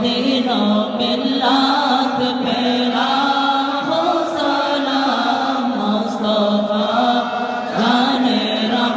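Unaccompanied devotional chanting of a salatu salam, the sung salutation to the Prophet, by a male voice leading on a microphone. It moves in long held notes, and the melody shifts phrase by phrase.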